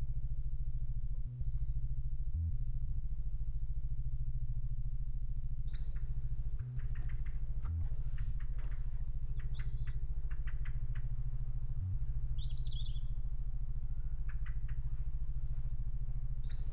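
A steady low hum, with birds chirping in short high calls from about six seconds in.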